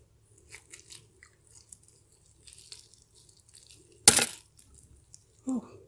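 Crispy KFC fried chicken skin crackling as it is pulled and torn off by hand: scattered small crackles, then one loud crunch about four seconds in.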